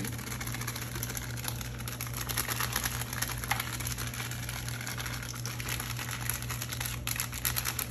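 Rapid light tapping and crinkling of a foil spice packet as powdered biryani masala is shaken out of it. A steady low hum runs underneath.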